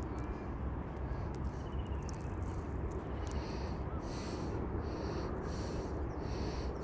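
Steady low rumble of wind on the camera microphone, with scattered sharp ticks. From about halfway in, an animal gives a repeated high buzzy call, a little more than one a second.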